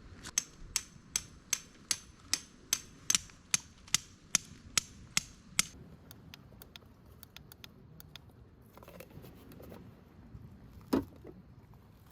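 Sharp metallic taps in a steady rhythm, about two and a half a second, for some five seconds, then a few fainter ticks and a single louder knock near the end.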